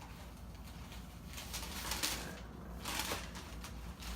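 A few short bursts of paper and packaging rustling as the sneakers are handled out of their box, the loudest about two and three seconds in.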